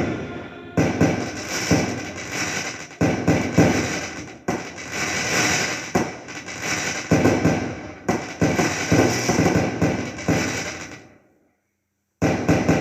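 Fireworks going off: a fast run of sharp bangs from bursting shells, each trailing off in crackling. The sound cuts out for about a second near the end, then the bangs start again.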